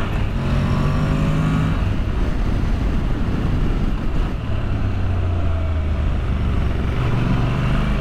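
Honda NC750X's parallel-twin engine running at road speed, with wind rushing over the microphone. The engine settles into a steady low drone partway through.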